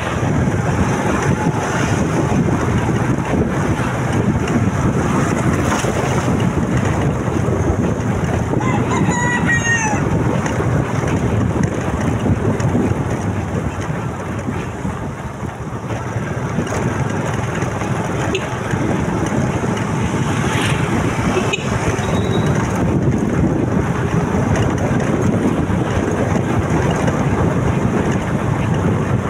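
Wind rushing over the microphone of a moving motorcycle, with engine and road noise underneath; the rush eases briefly around the middle. A short call that rises and falls in pitch cuts through about nine seconds in.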